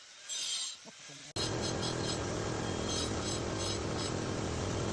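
Electric drill boring dowel holes in stone, starting abruptly about a second in and then running steadily with a low hum and a gritty whine.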